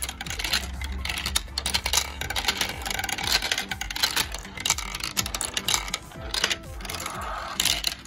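Marbles rolling and dropping through a plastic marble run, a rapid, uneven clicking and rattling of marbles on plastic track, easing off briefly about six seconds in and picking up again near the end.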